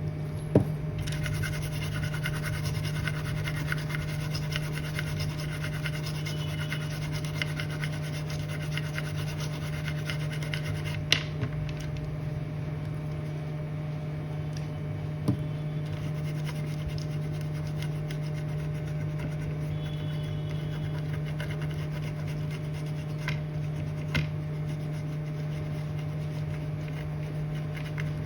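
A brush scrubbing the laptop motherboard around the freshly soldered USB jack to clean it, a dry scratching rub, over a steady low hum, with a few sharp clicks.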